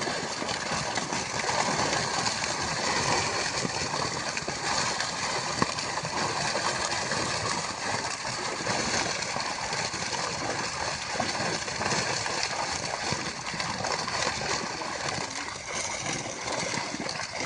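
Steady rush of flowing water, gurgling, with a faint steady high tone above it.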